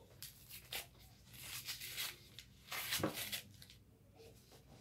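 Paper and cardboard of a starch box being torn and crinkled as its top is pulled open by hand, in several short rustling bursts.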